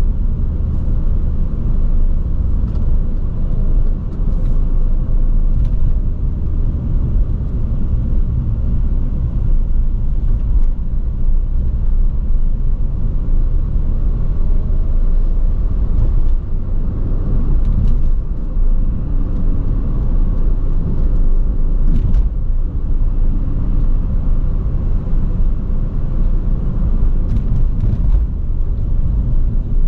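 A loud small sports car driving in traffic: a steady low engine and exhaust rumble mixed with tyre and road noise, with slight shifts in engine pitch.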